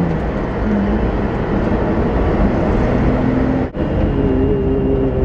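Inside the cabin of a BMW E30 convertible on the move: its swapped-in M20B25 straight-six running under way under heavy road and wind noise, the engine tone shifting in pitch. The sound drops out for a moment a little past halfway.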